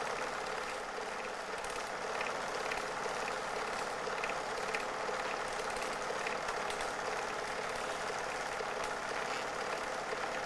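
Film projector running: a steady mechanical whir with faint regular ticking, unchanged across the change of scene.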